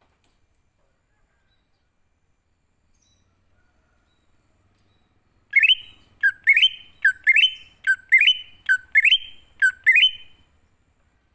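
Wild green leafbird (cucak ijo) calling: about halfway in, a run of about six sharp notes, each sweeping upward in pitch, a little more than one a second.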